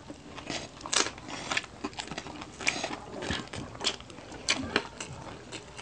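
Close-miked eating sounds: irregular sharp crunches, clicks and mouth smacks from chewing and pulling apart crispy pata, deep-fried pork knuckle.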